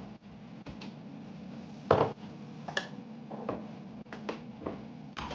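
Scattered knocks and clicks of kitchen items being handled during one-handed cooking, the loudest about two seconds in, over a steady low hum.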